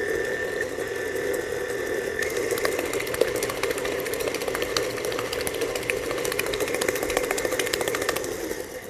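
Electric tilt-head stand mixer running at a raised speed, beating eggs and sugar in a steel bowl. About two seconds in, a steady whine drops out and a fast rattle takes over. The motor stops near the end.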